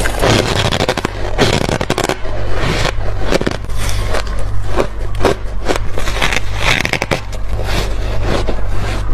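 Close-up crunching as hard freezer frost and ice are bitten and chewed, in many sharp, irregular crunches, with frost scraped from the freezer by hand near the start. A steady low hum runs underneath.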